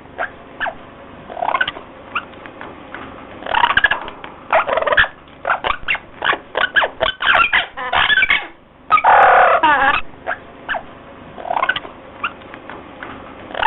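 Birds calling: scattered short calls, a fast run of calls, then one longer wavering call about nine seconds in.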